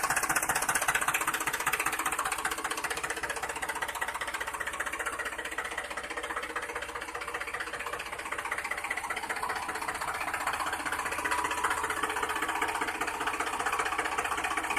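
Tractor engine sound effect: an engine running steadily with a fast, even knocking clatter.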